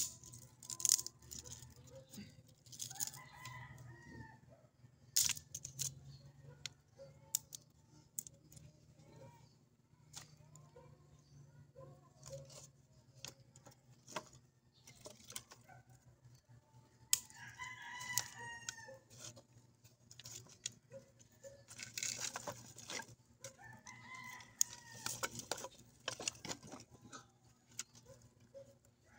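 Chickens, with a rooster crowing several times in drawn-out calls and clucking in between. Scattered sharp clicks cut through.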